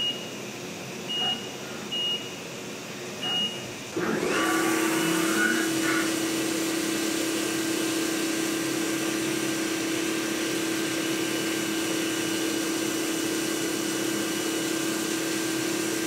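Four short high beeps during the first four seconds while a spindle touch probe measures the bore. Then, about four seconds in, the CNC mill's spindle starts running at a steady pitch as a 6 mm end mill makes the finishing pass in 6082-T6 aluminium, under a steady hiss of coolant spray.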